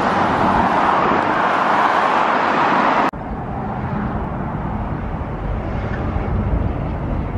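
Road traffic: cars passing close by with tyre and engine noise. About three seconds in it cuts off abruptly to a quieter, low rumble.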